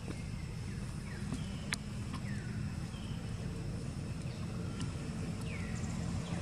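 A steady low rumble of outdoor background noise, with birds giving short falling chirps every second or so and one sharp click less than two seconds in.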